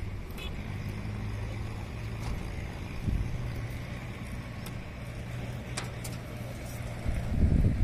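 Steady low drone of running machinery, with a few faint light clicks. Low rumble, like wind on the microphone, rises near the end.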